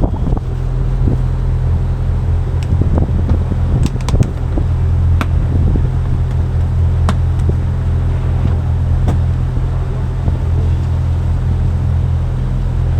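Charter fishing boat's engine running steadily, a low drone heard on board, with a few faint clicks over it.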